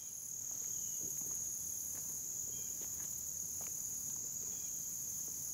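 Steady high-pitched insect chorus, one unbroken trill, with a few faint rustles of footsteps through undergrowth.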